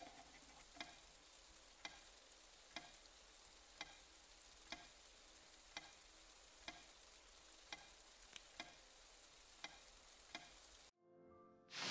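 Faint hiss with a light tick about once a second, the ticks alternating slightly in spacing like a ticking clock. It cuts off suddenly near the end.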